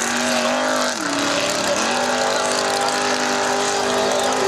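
Formula Offroad buggy's engine running at high revs as the car climbs a steep sand hill. Its pitch dips about a second in, then climbs back to a steady high note, over a steady hiss.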